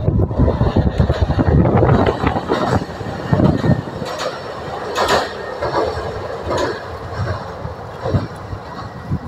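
Diesel railcar crossing a steel girder railway bridge: a heavy rumble with clatter of wheels over rail joints, loudest in the first couple of seconds, then dying away with a few separate clunks as the car moves off.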